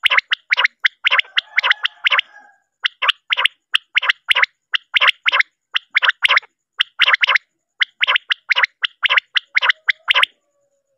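Recording of a common quail calling: short, sharp notes repeated in quick runs of two or three with brief pauses between runs. It is a calling sound played as a lure to draw quail at night for netting.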